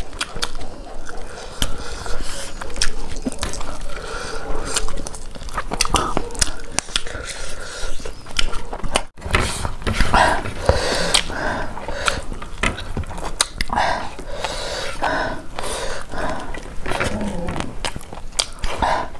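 Close-miked eating sounds of two people chewing rice, curry and fried pakora, with many small wet mouth clicks. The sound cuts out briefly about nine seconds in.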